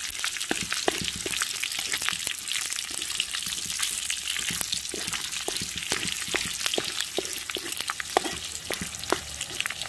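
Diced pork belly frying in its own rendered fat in a wok: a steady sizzle with frequent pops and crackles of spitting fat, as the fat is being cooked out of the pork. A wooden spatula stirs and scrapes the pieces around the pan.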